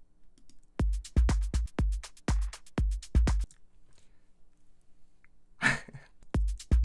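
House drum loop playing back from a music-production program: kick, claps and hi-hats, with a glitchy reversed percussion sample layered on a clap. The beat plays for a few seconds, stops for about two seconds, and a short noisy sound comes just before the hits start again near the end.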